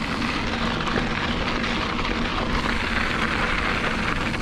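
Wind rushing over the camera's microphone and mountain bike tyres rumbling over a dirt fire road during a fast descent: a steady, loud rush.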